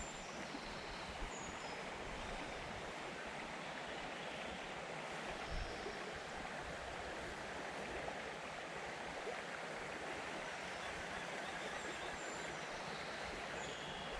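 Steady rush of flowing creek water, an even hiss of running water.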